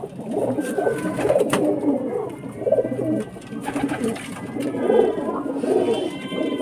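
A loft full of domestic pigeons cooing at once, many overlapping coos running on without a break, with a few sharp clicks among them.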